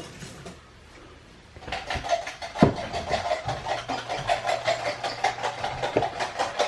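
Black pepper being ground over the filling: a fast, even grinding rattle of a pepper mill that starts a couple of seconds in and keeps going, with a couple of sharper knocks.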